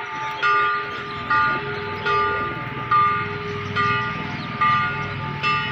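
A church bell rung over and over, about seven strokes a little under a second apart, each ringing on between strokes, over the murmur of a crowd.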